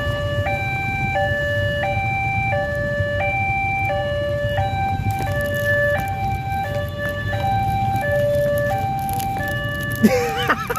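Railway level-crossing warning alarm: an electronic two-tone signal switching between a higher and a lower note roughly every two-thirds of a second, over a steady low engine rumble from waiting traffic. Near the end a short wavering, sliding sound cuts in over it.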